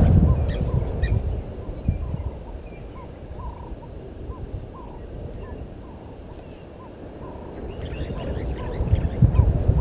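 Bird calls at a waterhole: a short note repeated about twice a second, with a burst of scratchy chattering about eight seconds in. Low rumbling noise under them is loudest at the start and again near the end.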